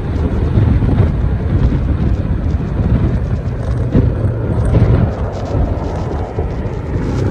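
Yamaha Smax scooter on the move: wind buffeting the microphone as a deep, uneven rumble over the scooter's engine and road noise. The rumble eases somewhat near the end.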